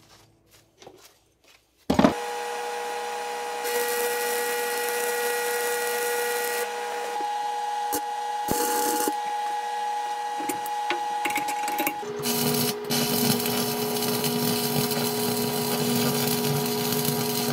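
Steel being arc-welded inside a plastic drum: a few light knocks, then from about two seconds in a steady crackling, sputtering arc with a steady hum under it. The hum changes pitch about two-thirds of the way through.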